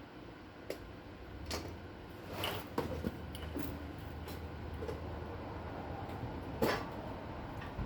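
Scattered light clicks and knocks of tools and metal parts being handled, over a steady low hum; the sharpest knock comes near the end.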